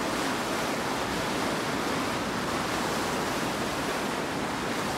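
Steady rush of storm-driven surf: an even wash of noise with no single breaking wave standing out.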